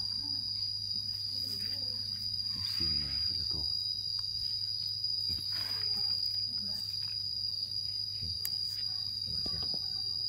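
An insect trilling steadily at one high, unbroken pitch, with faint voices in the background.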